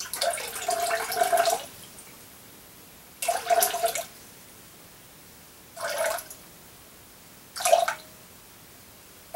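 Water poured from a jug into a glass measuring pitcher in four pours, one long one of about a second and a half, then three short splashes a couple of seconds apart. This is the water for a soap lye solution being topped up to its measured weight.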